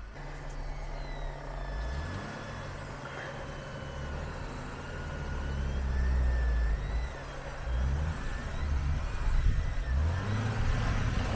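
Jeep Wrangler JK being winched out of a snowy ditch: a vehicle winch pulling under load with the engine running, its low hum climbing in pitch about two seconds in and again towards the end.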